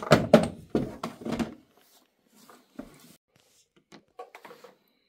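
Wooden blocks clattering and knocking loudly for the first second and a half, then a few lighter, separate wooden taps as the blocks are set into a Jenga-style tower.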